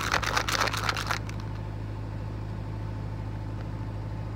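A quick clatter of rattling clicks for about the first second, then a steady low hum.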